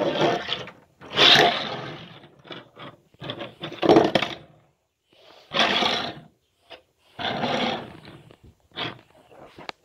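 A voice making mouth-made race-car engine noises in about six loud bursts of roughly a second each, while die-cast toy cars are pushed across a table.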